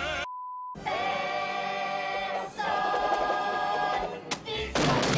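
Vibrato singing cut off by a short, high, steady beep of about half a second. A choir then holds two sustained chords, one after the other. A loud noisy burst begins near the end.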